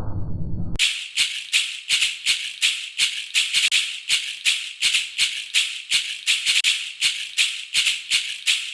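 An alert alarm made of short hissing bursts repeated about three times a second, sounding like a shaken rattle. It begins suddenly about a second in, right after a low, muffled alarm sound cuts off.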